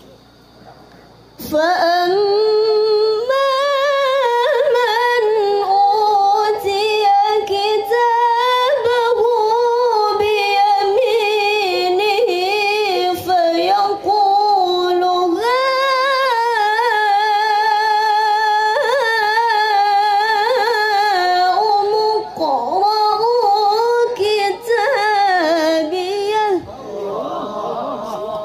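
A young woman reciting the Quran in the melodic tilawah style, long ornamented phrases held high and bending in pitch, amplified through a handheld microphone. The recitation starts about a second and a half in, pauses briefly a few times, and stops shortly before the end.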